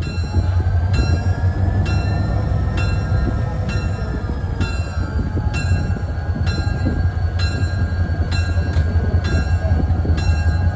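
EMD FP45 diesel-electric locomotive (20-cylinder EMD 645 engine) rumbling steadily as it approaches, with a bell ringing about once a second.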